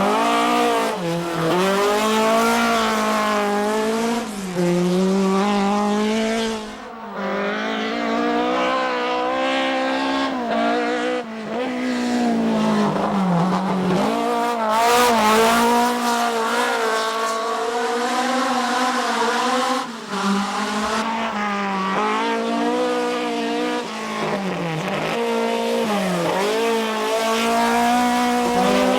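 Ford Escort Mk2's Cosworth BDA twin-cam four-cylinder racing engine at full throttle, revs climbing and dropping again and again as the car is driven hard through the gears, with a few brief lifts off the throttle.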